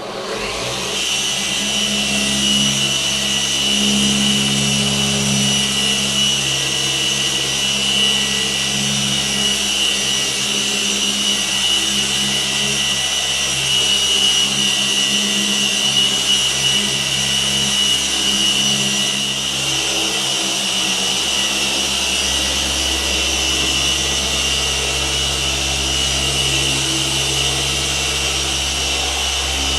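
Rupes Mark III 21 mm-throw random orbital polisher with a wool pad switching on and running steadily while buffing coarse cut compound on a wet-sanded paint panel, with a steady high whine over a low hum. A deeper rumble grows stronger about two-thirds of the way in.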